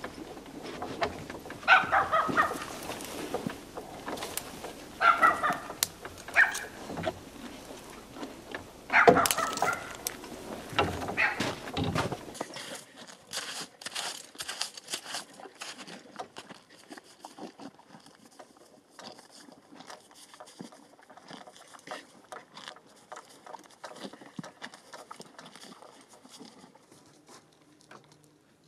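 Hucul horses grazing in snow: dense crisp tearing and crunching as they crop grass from under the snow and chew it. Before that, about five short animal calls come over a low rumble in the first part.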